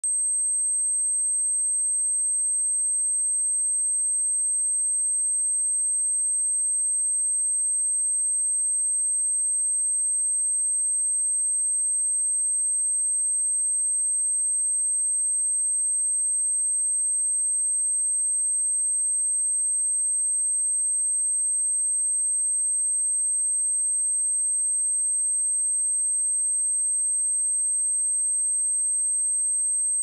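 A pure 8305 Hz sine-wave test tone, one steady high-pitched whistle held at constant level without a break, as used to test speakers or to shake water and dust out of them.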